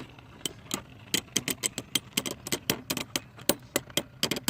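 Two 3D-printed plastic Beyblades battling in a stadium: an irregular run of sharp clacks, several a second, as the spinning tops strike each other and the stadium frame.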